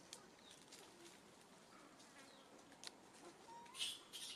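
Near silence: faint outdoor forest ambience with a few soft clicks and a brief high hiss near the end.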